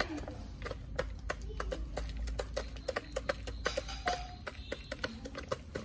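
Chickens pecking feed from a plastic feeder tray and the dirt ground: a quick, irregular run of sharp taps, with a short call from one bird about four seconds in.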